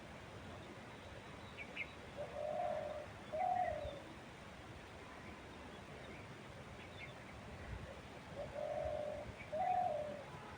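A dove cooing in two phrases about six seconds apart, each a longer low coo followed by a shorter falling one. Faint high chirps of small birds and a steady wind hiss run underneath.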